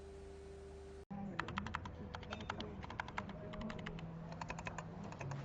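Typing on a mechanical keyboard fitted with XDA-profile PBT keycaps: quick, irregular key clacks, starting suddenly about a second in after a steady hum and hiss.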